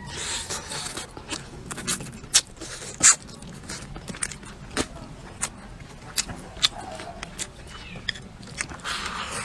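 Close-miked eating: chewing with many irregular sharp clicks and crunches, the loudest about three seconds in.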